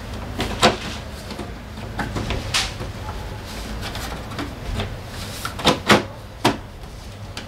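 Hard plastic body panels of a SYM Fiddle 3 scooter knocking and clicking as they are pressed and pulled by hand at the floorboard: a handful of sharp clicks, the loudest two close together about six seconds in, over a low steady hum.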